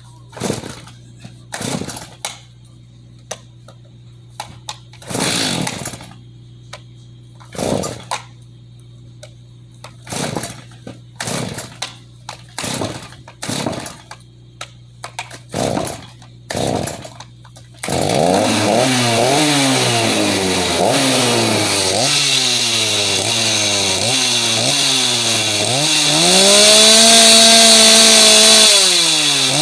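Stihl MS390 two-stroke chainsaw, its crankcase cracked, pull-started with a dozen or more separate rope pulls before it catches about 18 seconds in. It is then revved up and down repeatedly, held at high revs for a couple of seconds near the end, and then drops and revs again.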